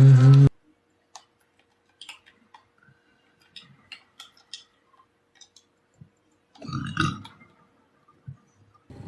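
A man burping: a loud, low burp that cuts off abruptly about half a second in. It is followed by faint clicks and mouth noises, and a short, louder sound about seven seconds in.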